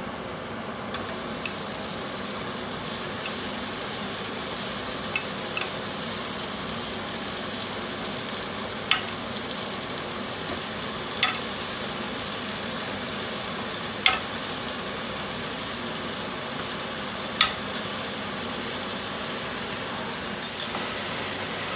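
Chicken wings, garlic and onion frying in a wok over a gas flame: a steady sizzle. Sharp clicks come every few seconds as the wings are moved in with metal tongs.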